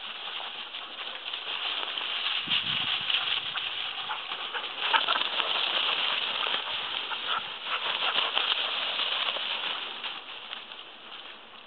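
Tall grass rustling and swishing as dogs run and play through it, with crackly brushing that swells in the middle and fades near the end, and a dull thump about two and a half seconds in.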